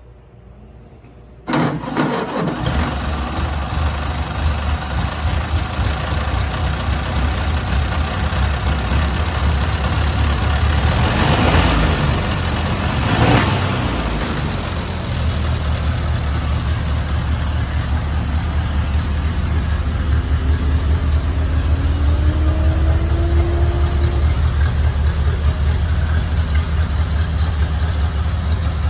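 1931 Ford Model A's four-cylinder flathead engine starting up, catching almost at once, then idling steadily. It is revved briefly twice about halfway through.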